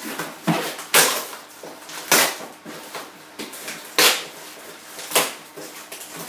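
Packing tape and cardboard being torn by hand from a cardboard delivery box: a series of short ripping and scraping sounds, the loudest coming about once a second.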